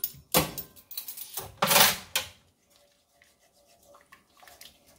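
Spoons knocking and scraping against a stainless steel pot of curry broth as spice is stirred in: several sharp knocks and a longer scrape in the first two seconds or so, then soft, faint stirring.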